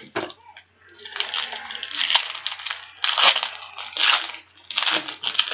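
Baseball card pack being handled: crinkly, rustling paper-and-foil noise in a series of bursts, with a short lull about half a second in.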